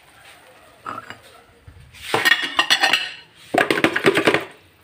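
Kitchenware clattering: dishes and utensils knocking and clinking together in two busy bursts, about two seconds in and again about three and a half seconds in.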